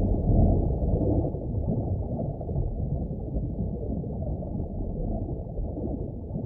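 A muffled, low rumbling noise with no clear pitch that slowly fades.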